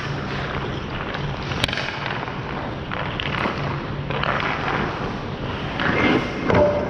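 Hockey skate blades scraping and carving on rink ice, a dense crackling scrape, with a sharp click about one and a half seconds in.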